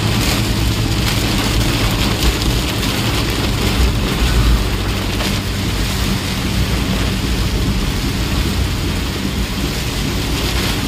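Heavy rain beating on a moving vehicle's windshield and body, steady throughout, over the low hum of its engine.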